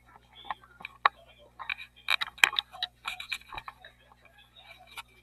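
Irregular clicks, taps and scrapes of a camera being handled and repositioned over a tabletop, busiest a couple of seconds in.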